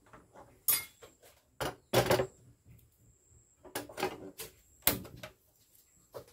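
A series of sharp metallic clicks and knocks as an aluminium cooking pot is handled on a steel gas stove, then the burner is turned on and lit.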